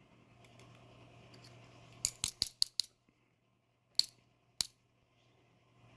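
Small, sharp metal clicks and taps from handling the pins of a disassembled Medeco lock core: a quick run of about five clicks around two seconds in, then two single clicks, over a faint steady low hum.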